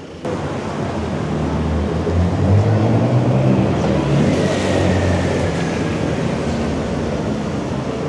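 Road vehicle engine running with a low steady drone, with a brief hiss and a faint falling whine about halfway through.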